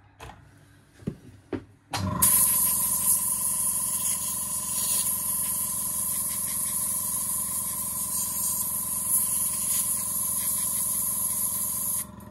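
Handheld air nozzle blowing a steady jet of air onto a small phone part: a loud hiss with a steady whistle-like tone, starting about two seconds in and cutting off shortly before the end.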